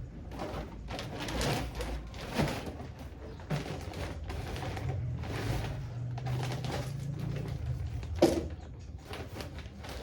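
Handling noise of packaged groceries being picked up and set down: rustling of packaging and a series of light knocks, the sharpest about eight seconds in, over a steady low hum.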